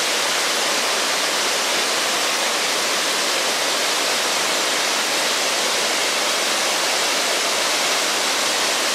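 Waterfall pouring over rock ledges: a steady, even rush of water, more hiss than low rumble.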